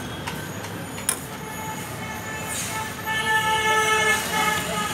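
Street traffic noise with a vehicle horn sounding steadily for about two seconds in the second half. There is a single sharp clink about a second in.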